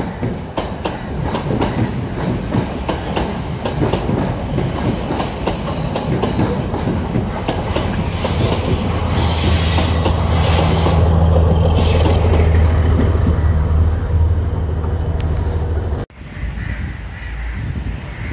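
Diesel multiple unit passing close by: wheels clacking over rail joints, then the power car's diesel engine droning low and loud as it goes past, with a faint wheel squeal on the curve. The sound cuts off abruptly near the end, leaving quieter outdoor background.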